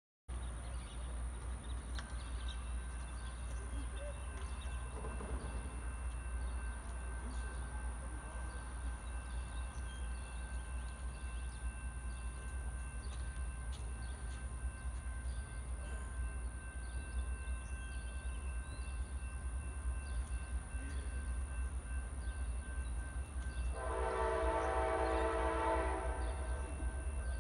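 Steady low rumble around the rail line, then about 24 s in an Amtrak locomotive horn sounds one long blast of about two seconds, a steady multi-note chord.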